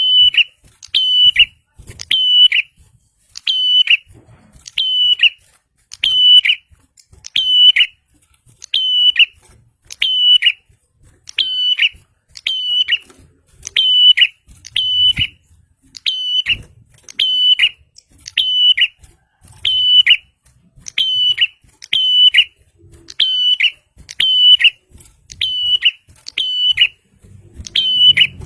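Prinia calling over and over: a sharp, high note with a quick falling tail, repeated at a steady pace of a little more than one per second.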